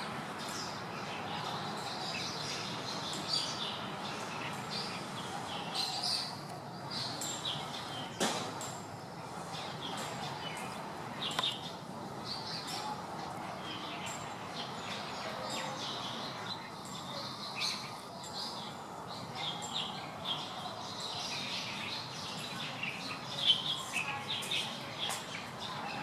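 Small birds chirping in short, repeated calls throughout, over a steady hiss of outdoor background noise, with a sharp click twice near the middle.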